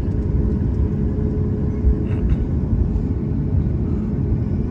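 Airliner cabin noise while the jet taxis onto the runway: a steady low rumble, with a thin steady hum that stops a little past halfway.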